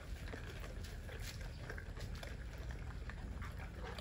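Several pit-bull-type dogs chewing and crunching raw meat and bone, a scatter of short irregular clicks over a steady low rumble.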